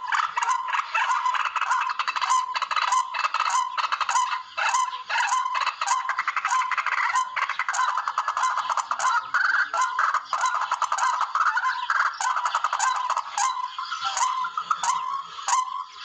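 Recorded calls of barred rails (tikling): a dense, rapid chatter of harsh repeated notes with hardly a break, the kind played back to lure the birds.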